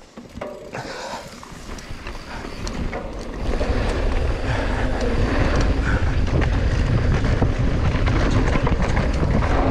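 Wind buffeting the camera's microphone, with mountain bike tyres running over a loose dirt trail and scattered clicks and rattles from the bike. It gets much louder about three and a half seconds in and stays loud.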